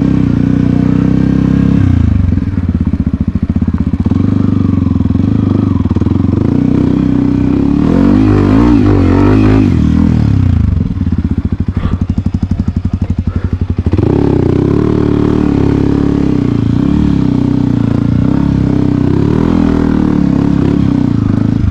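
Dirt bike engine running under the rider at low to moderate revs, rising and falling with the throttle. About halfway through it drops to low revs with separate firing pulses audible, then picks up again about two-thirds of the way in.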